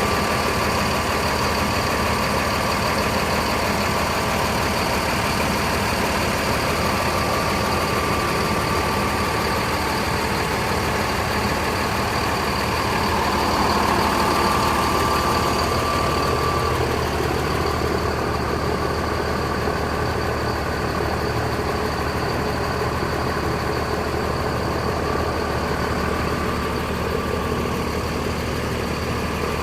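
Large bus engines idling steadily while being warmed up, with a steady whine over the engine hum that grows slightly louder about halfway through.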